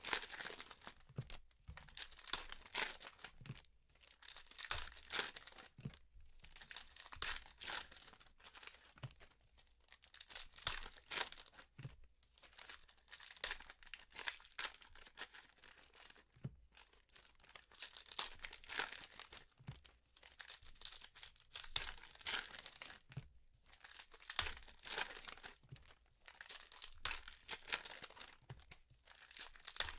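Foil wrappers of 2015 Panini Prizm football card packs being torn open and crinkled by hand, in repeated bursts with short pauses between.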